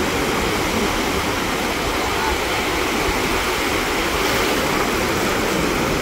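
Steady wash of small waves breaking and running over the shallows of a sandy beach, with a low rumble of wind on the microphone.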